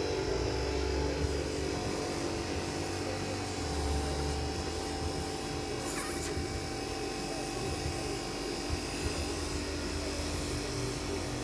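Airbrush air compressor running with a steady hum, under the hiss of the airbrush spraying paint onto a T-shirt.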